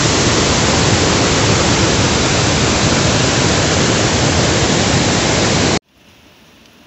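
Floodwater rushing through the open spillway gates of a hydroelectric dam: a loud, steady, even noise that cuts off suddenly about six seconds in, leaving only a much quieter background hiss.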